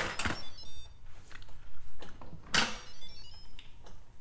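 An Instant Pot electric pressure cooker's lid clicks as it is turned to unlock and clunks again as it is lifted off. Each click is followed by a short electronic jingle of quick high beeps from the cooker, the signal that the lid has been opened.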